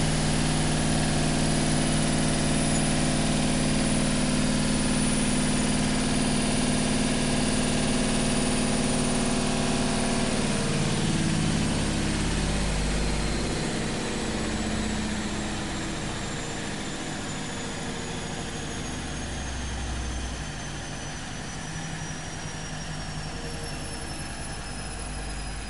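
Washing machine running with a steady motor hum. About ten seconds in it grows quieter and a high whine falls slowly in pitch as the machine winds down.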